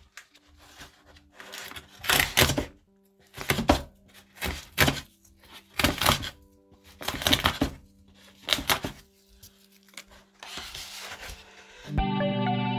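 Cardboard mailer box being handled and opened by hand: a series of about seven short scraping, rustling noises, spaced a second or so apart. Music starts near the end.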